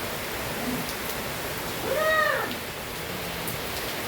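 Steady rain hiss, heavy rainfall. About two seconds in, a single short call rises and falls in pitch over about half a second.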